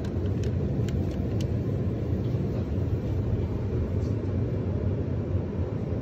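A steady low rumble, with a few faint clicks about a second in.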